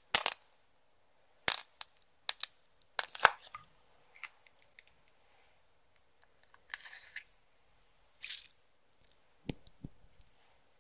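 Irregular sharp clicks and crunches from slime and makeup being worked by hand, the loudest near the start, with a short crackle about two-thirds through and a couple of dull thumps near the end.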